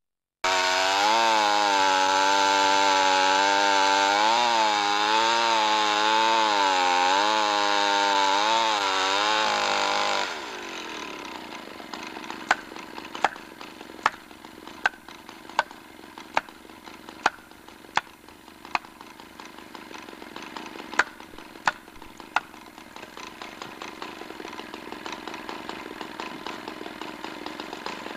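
Chainsaw cutting into a tree trunk at high revs, its pitch wavering under load, for about ten seconds, then dropping back to idle. While it idles, about a dozen sharp knocks follow from a long-handled tool struck at the base of the cut, typical of driving a felling wedge.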